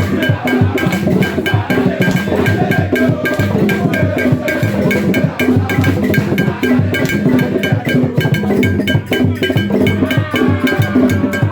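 Loud music with a steady beat of drums and percussion over a strong bass line.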